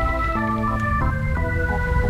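Background music: sustained organ-like keyboard chords, changing every half second or so, over a low rumble.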